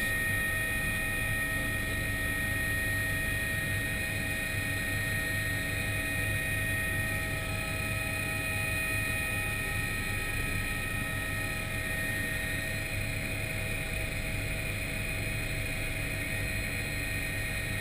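Helicopter in flight heard from inside the cockpit: a steady drone of rotor and engine with a constant high whine over it.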